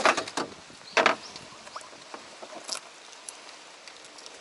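Rustling and a few sharp knocks as a largemouth bass is handled from a landing net onto a plastic measuring board with gloved hands, the loudest knock about a second in; after that only faint scattered ticks.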